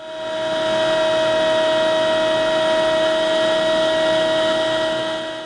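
Table-mounted router running steadily with a pattern-routing bit, trimming the edge of a round plywood-and-veneer tabletop that is guided against the bit's bearing. The sound is a steady high whine over a hiss. It fades in at the start and fades out near the end.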